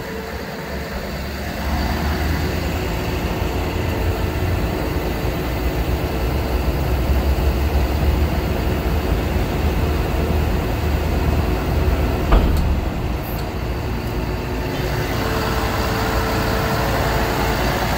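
The truck's Cummins 6.7-liter diesel engine running steadily, a little louder from about two seconds in. A single sharp knock about twelve seconds in.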